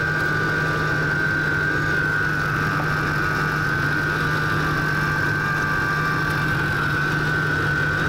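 Ford 5.4 V8 idling steadily under an open hood, with a steady high-pitched whine from a noisy alternator over it. The engine has a vacuum leak at a leaking intake manifold gasket, which is running it lean.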